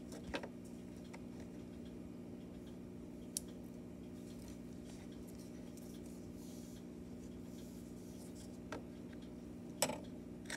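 Faint steady low hum of room tone, broken by a few soft clicks and taps of small plastic toy figures being handled and set down, the loudest near the end.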